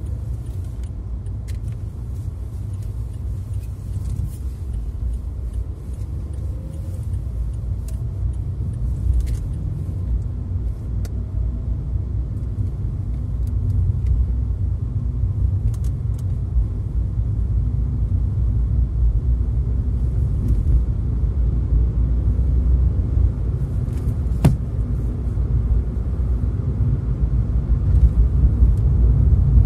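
Car driving along a highway: a steady low rumble of road and engine noise that slowly grows louder, with a single sharp click about three-quarters of the way through.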